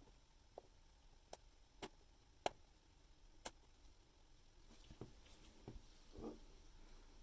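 Small metal watchmaking tools clicking against the parts of a manual-wind watch movement during assembly: about five sharp, irregular clicks in the first few seconds, then a few softer clicks and a brief rustle near the end.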